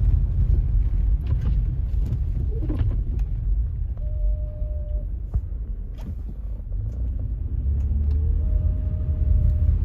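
Low, steady rumble of an SUV driving, the engine and road noise running without a break.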